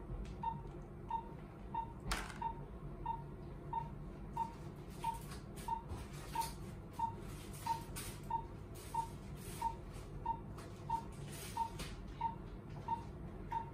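Patient monitor's pulse beep: a short high beep repeating steadily, about three beeps every two seconds, one for each heartbeat. Faint rustling and small clicks of plastic drape and gloved handling are heard under it.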